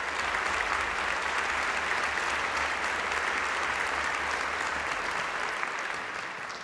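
Audience applauding in a concert hall, steady throughout and beginning to die away near the end.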